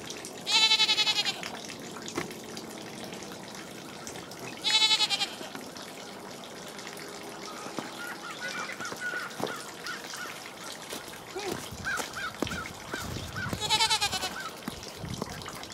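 Goat bleating three times: a quavering bleat about half a second in, a shorter one about five seconds in, and a third near the end.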